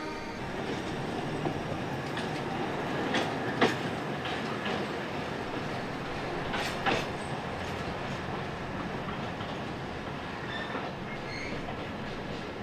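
Narrow-gauge Alishan Forest Railway train rolling slowly past on a curve: a steady rumble with scattered sharp clicks of the wheels over rail joints, and a few short high squeals from the wheels late on.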